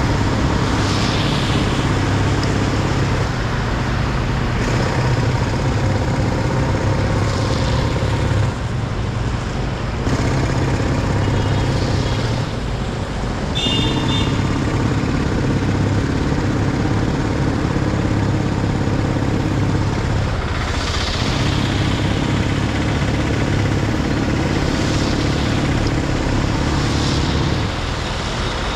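A car driving in traffic: steady engine hum and road noise, with passing swells of hiss. A brief high-pitched tone sounds about halfway through.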